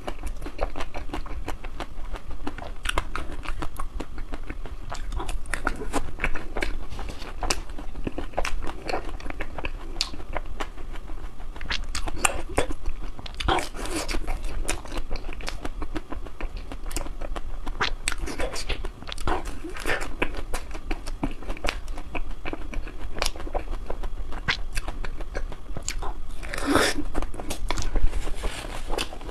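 Close-miked biting and chewing of chocolate-coated ice cream bars: the hard chocolate shell crackles and crunches with each bite, amid a steady run of small crackles. The loudest crunch comes near the end.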